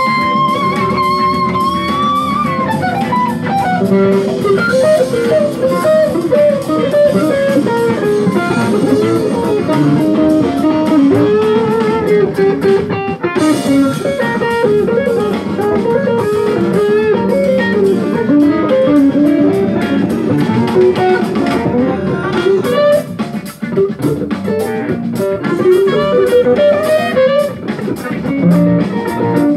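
White Stratocaster-type electric guitar playing a jazz-funk lead line: a held note that bends upward in the first couple of seconds, then quick melodic runs, over an accompaniment of bass and drums.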